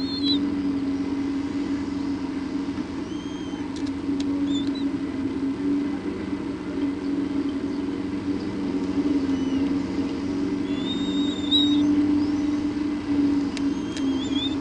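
A steady low hum, with short high chirps now and then and a few faint clicks.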